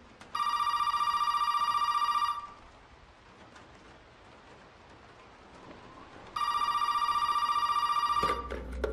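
Desk telephone ringing: two rings of about two seconds each, about four seconds apart, each with a fast trill. Near the end a few sharp clicks and a low rumble begin.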